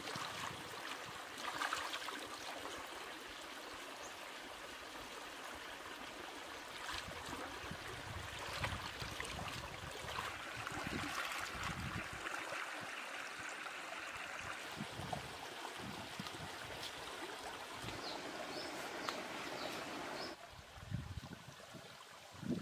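Shallow stream water running and trickling over rock, with light splashes and knocks as hands rinse chillies in the water. The water sound drops away suddenly near the end.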